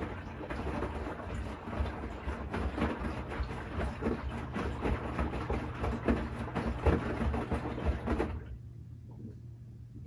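Bosch Series 6 i-dos front-loading washing machine tumbling wet fleece laundry during the wash: water sloshing and cloth flopping in the turning drum. The drum stops suddenly about eight seconds in, leaving a low steady hum.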